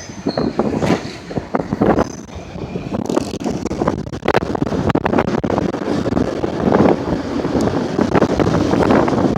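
Train rolling past close by, a loud steady rumble with many irregular knocks from the wheels, and wind buffeting the microphone.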